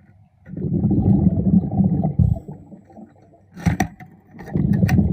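A diver's exhaled breath bubbling out of a regulator underwater: two low, rumbling bubble bursts, each about two seconds long, with a few sharp clicks in the pause between them.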